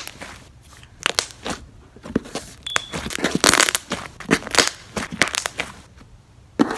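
Fluffy slime being squeezed, poked and stretched by hand close to the microphone, giving irregular crackling clicks and squishes that are densest in the middle. There is one short high squeak a little before the middle.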